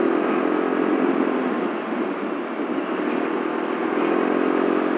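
Yamaha Mio Soul scooter riding along in traffic: a steady engine drone mixed with road and rushing-air noise, with no sudden events.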